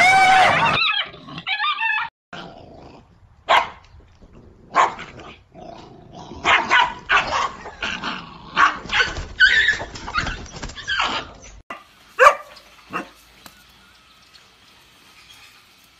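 Dogs barking and growling in short, separate bursts while fighting chickens, with two sharp yelps near the end.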